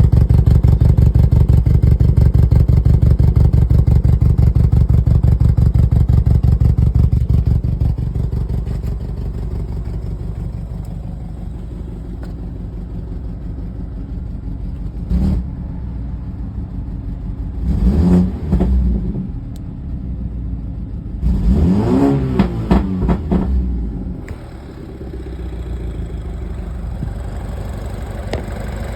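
BMW N26 2.0-litre turbocharged four-cylinder engine running with a steady pulsing beat. It is louder for the first several seconds, then settles to a lower idle and is revved briefly a couple of times. It is misfiring on cylinder 3 (code P0303) from low compression in that cylinder.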